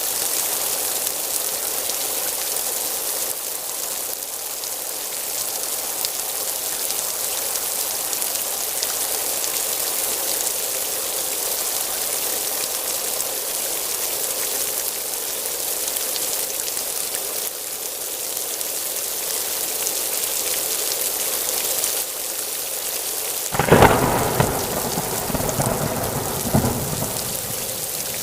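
Steady heavy rain hissing, with a sharp thunderclap near the end that rumbles on for about three seconds.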